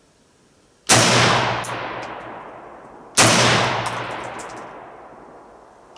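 Colt Combat Unit Carbine, a 5.56 mm AR-15-type rifle, fired twice in semi-automatic, about two and a half seconds apart, the shots being part of a three-shot group. Each shot is a sharp crack with a long echoing tail, and a third shot begins right at the end.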